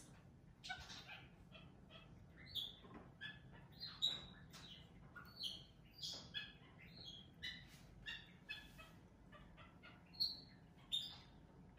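Pet capuchin monkey giving a string of short, high chirps and squeaks, about two a second.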